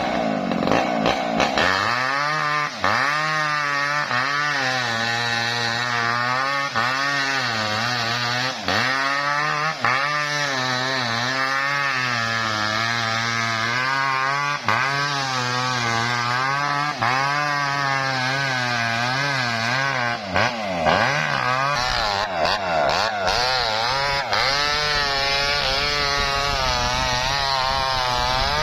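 Small Maestro chainsaw ripping a coconut palm trunk lengthwise, its engine note wavering up and down continuously as it bogs under the cut and picks up again.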